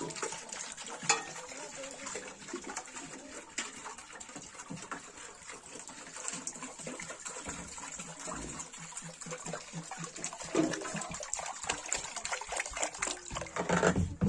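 Water pouring from a plastic jerrycan into a metal pot, splashing steadily.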